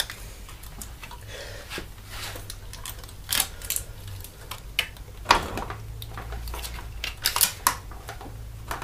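Irregular metallic clicks, knocks and scrapes as the spindle housing of a Bafang BBS01-type mid-drive motor is slid and worked by hand into a bicycle's steel bottom bracket shell.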